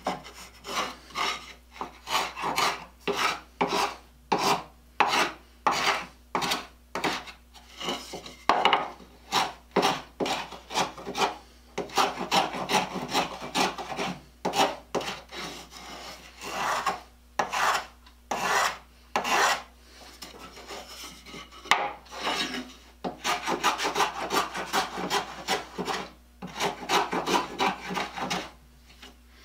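Stanley block plane taking the edges off wooden boards: a long run of short shaving strokes, about one or two a second, with a brief pause about two-thirds of the way through.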